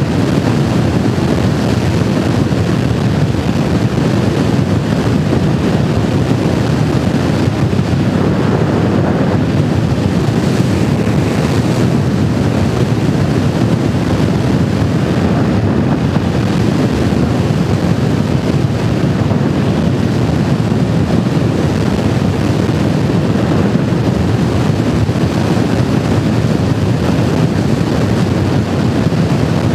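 Motorcycle at riding speed: a steady rush of wind over the microphone mixed with engine and road noise, unchanging throughout.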